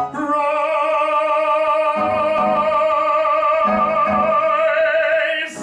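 A male singer holding one long high note with steady vibrato, over sparse accompaniment chords, cutting off shortly before the end.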